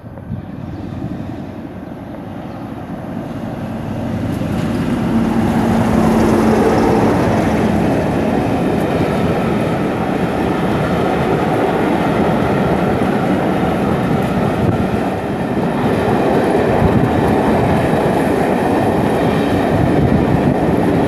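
A passenger train passing at speed through a station. A diesel locomotive draws near and grows louder over the first few seconds, with a steady engine note as it goes by. Then a long rake of coaches rolls past close by with continuous wheel and rail noise.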